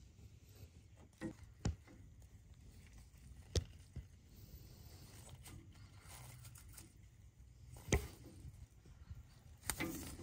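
Scattered light clicks and knocks, about six in all, as a gloved hand works the greased fuel-pump pushrod into its bore on a small-block Chevy engine.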